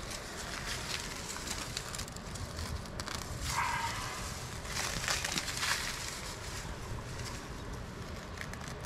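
Crunching and rustling of dry soil and plant roots being torn out of hard, packed ground, with a short pitched sound about three and a half seconds in.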